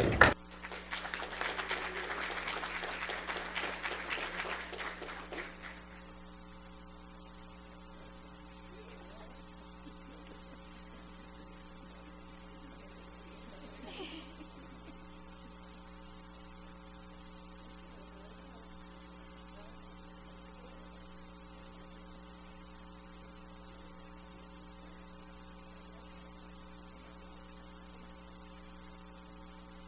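Audience applauding, dying away after about five seconds. A steady electrical mains hum is left underneath.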